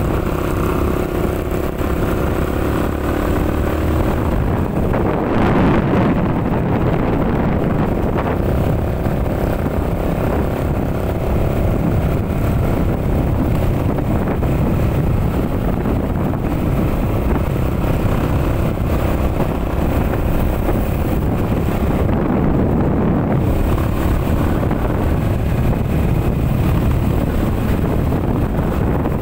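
Steady road and engine noise of a moving car, with wind rushing over the microphone; the rush swells briefly about five seconds in.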